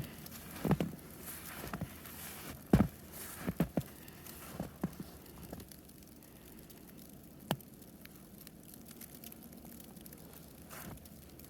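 Footsteps crunching and compressing deep snow at an irregular walking pace, which stop about halfway through. Only a few faint isolated clicks follow.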